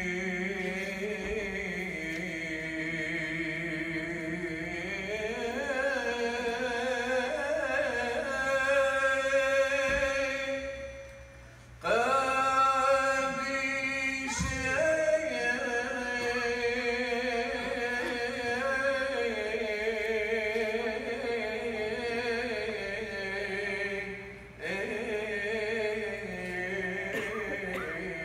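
Liturgical chant sung slowly, with long held notes that glide from pitch to pitch, and two short pauses between phrases, about 12 and 25 seconds in.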